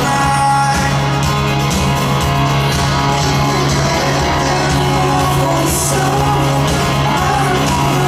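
Live rock band playing loud in an arena, heard from the audience: electric guitars, drums and a steady bass line under a man's lead vocal.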